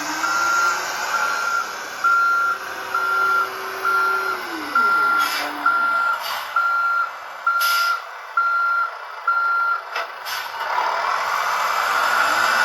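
Electronic sound module of a Volvo model vehicle playing simulated reversing beeps, a steady single-pitch beep about every three quarters of a second, over a simulated engine tone that falls away about four to five seconds in. Several short hisses come between about five and ten seconds in. The beeping stops near the end, and a steady hiss follows.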